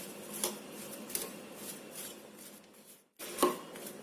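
Mawa stuffing with nuts and powdered sugar being mixed in a bowl: soft scraping and stirring strokes about twice a second, with a louder scrape a little after three seconds.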